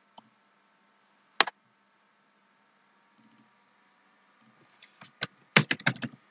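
A single sharp click about a second and a half in, then a quick run of keystrokes on a computer keyboard near the end, typing a short word.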